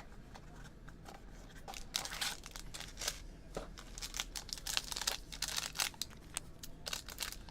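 Card packaging being torn open and crinkled by hand, with irregular tearing, rustling and small clicks as the second mini box of trading cards is unsealed.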